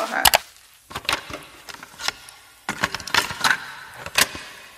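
A run of irregular sharp clicks and light clatters, as of small hard objects being handled.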